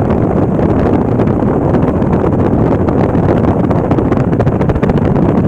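Steady road and wind noise inside a moving car's cabin, with wind buffeting the microphone.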